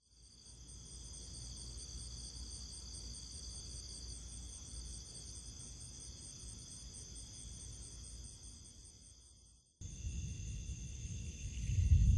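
Insects trilling in a steady, high-pitched chorus that fades in at the start. It cuts off abruptly about ten seconds in, then resumes with a low rumble building up near the end.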